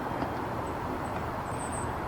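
Steady hum of traffic on a nearby highway, with a brief high thin note near the end.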